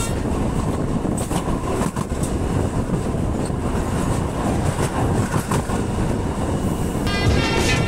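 CAF SRV-1 light rail train's wheels rolling over a track switch: a steady rumble with irregular clicks and knocks as the wheels pass the points. Background music comes back near the end.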